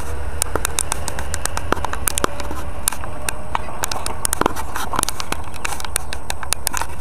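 Handling noise from a small camera being moved and rubbed by hand: many sharp clicks and crackles over a steady low rumble.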